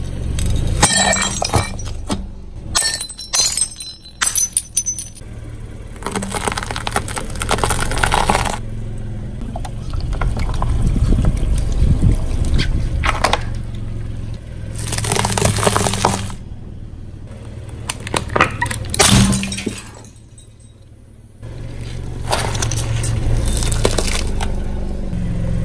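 A car tyre rolls over objects one after another, crushing them. Near the start there is a quick run of sharp cracking and breaking as brittle bowls give way, followed later by longer crunching and squashing passages. A steady low rumble of the car runs between the crushes.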